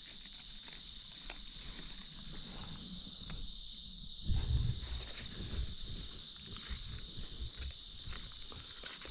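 Steady high insect chorus droning, with scattered small clicks and rustles and a brief low rumble about four and a half seconds in.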